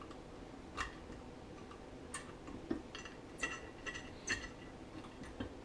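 Faint, irregular small metal clicks and clinks, about seven over five seconds, some with a brief ring: a steel pick working at the threaded top of a snowmobile primary drive clutch, clearing old Loctite from the threads.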